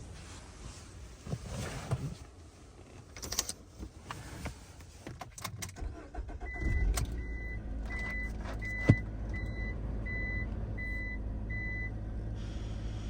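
Ram ProMaster City van's four-cylinder engine starting about halfway through and settling into a steady idle, run to heat the van, while a dashboard warning chime beeps about eight times at an even pace. Before the start there are scattered clicks and handling noises.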